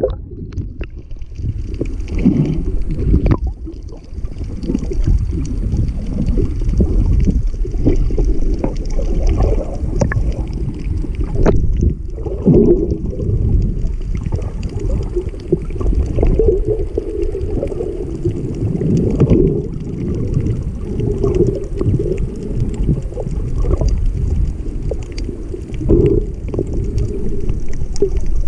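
Underwater water noise heard through a GoPro's waterproof housing: a muffled, steady low rumble and sloshing from a snorkeler swimming, with a few sharp knocks.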